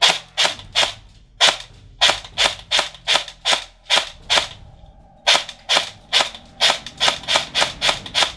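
Cyma M16A3 electric airsoft rifle firing on semi-automatic: a quick string of single sharp shots, two to four a second, with a short pause a little past halfway.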